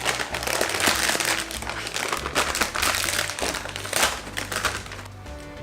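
Potato chip bag crinkling and rustling as it is opened and handled, with dense crackly noise and small clicks that die away near the end.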